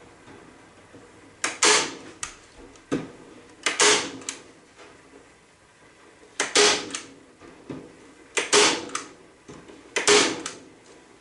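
Hand staple gun firing five times, roughly every two seconds, driving staples through wire hardware cloth into a wooden hive frame. Each shot is a sharp snap with a short metallic ring.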